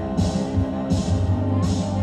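Live electronic music: held synthesizer chords over a low pulsing bass, with a hissing percussive hit about every three-quarters of a second.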